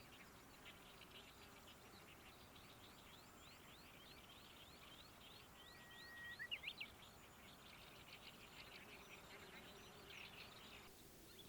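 Faint birdsong: small birds singing in fast, chattering strings of high chirps, with a thin held whistle and a few louder chirps a little past halfway.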